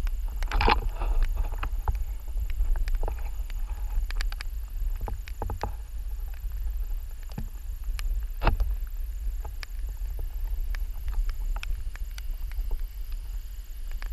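Footsteps and light clanks on a steel-mesh suspension bridge deck, scattered irregular knocks with a louder one about half a second in and another near eight and a half seconds. Under them, a steady low rumble of wind on the microphone.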